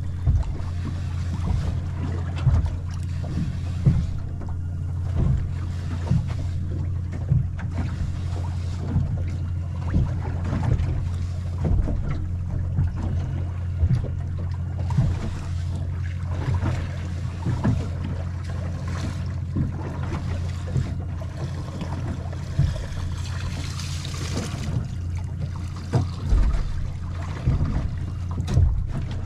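Small boat at anchor with water slapping against its hull in irregular knocks over a steady low rumble of wind on the microphone.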